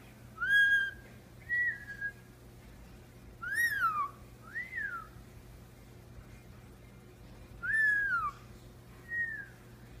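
Indian ringneck parakeet whistling: a string of about seven short, clear whistles, several gliding up and then down in pitch, at uneven gaps.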